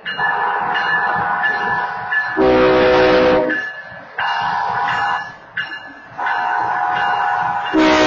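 A BNSF freight locomotive's air horn sounds at a road grade crossing: a short, loud, low chord about two and a half seconds in, then a longer blast starting near the end as the engine reaches the crossing. Between them a higher-pitched horn chord, the crossing's active wayside horn, sounds three times.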